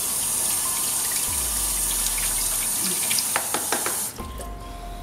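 Kitchen tap running steadily into a sink, then shut off sharply about four seconds in, with a few light clinks just before it stops.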